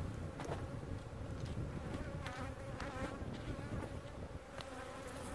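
Honeybees buzzing around an opened hive: a steady hum, with louder buzzes as single bees fly close past. A few light clicks and a low rumble run underneath.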